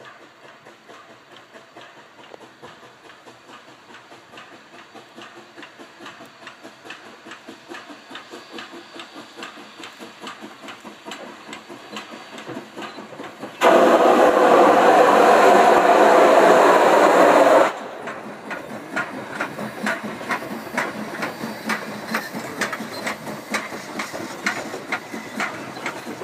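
Steam locomotive 464, a narrow-gauge 2-8-2, working onto a wooden trestle, its rhythmic exhaust beats growing steadily louder. About halfway through a loud blast of steam hiss lasts about four seconds and cuts off sharply. It is followed by the rhythmic clatter of wheels over the trestle as the coaches roll across.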